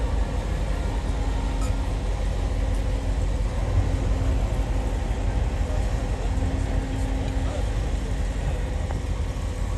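Steady low engine rumble, with a faint hum that fades in and out.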